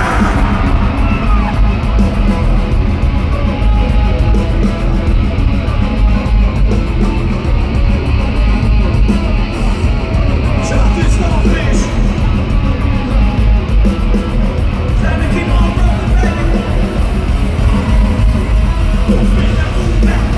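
Live nu-metal band playing loud: distorted guitars, bass and drums come in together right at the start and keep going, with yelled vocals over them.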